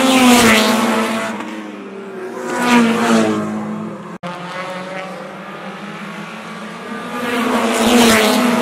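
Race car engines at full throttle passing by three times, each swelling loud and dropping in pitch as it goes past. The sound cuts out for an instant just after four seconds.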